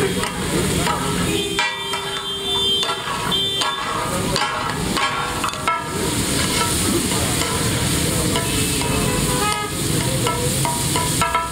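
Mutton chops sizzling on a flat iron tawa, with repeated knocks and scrapes of metal spatulas, over steady street traffic. Car horns toot a few times in the first few seconds.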